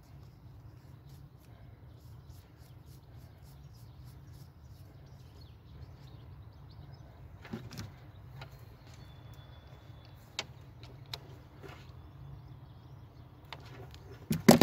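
Low steady background hum with scattered small clicks and taps from hand work on engine parts, and a sharp cluster of louder clicks near the end.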